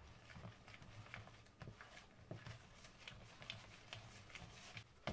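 Faint, irregular soft squishes and light taps of a hand working soft, slightly sticky pizza dough around a plastic bowl with loose flour.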